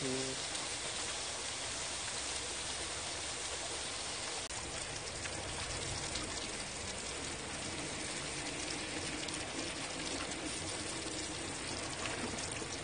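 Steady, even hiss of rain falling, mixed with pork belly sizzling on the grill.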